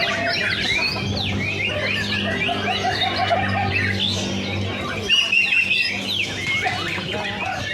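Several white-rumped shamas (murai batu) singing at once in a dense tangle of quick whistles, chirps and glides. A steady low hum runs underneath and stops about five seconds in.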